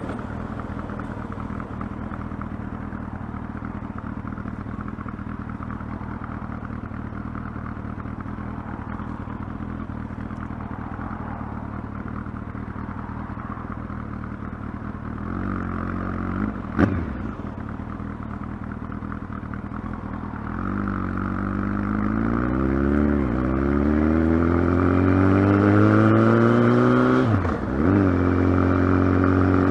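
Kawasaki ZX-12R's inline-four engine running at a steady idle, with a quick throttle blip about halfway through. The revs then climb over several seconds, dip briefly and hold at a higher, steady speed near the end.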